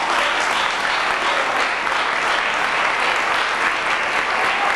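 Audience applauding steadily, a dense clapping with no voice over it.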